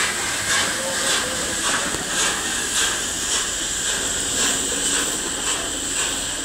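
Passenger carriages of a steam-hauled train rolling slowly past, their wheels clicking over the rail joints about twice a second, over a steady high hiss.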